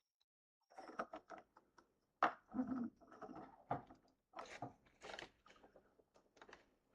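Hard plastic toy being handled and turned over: a quick run of clicks, knocks and rattles, starting about a second in.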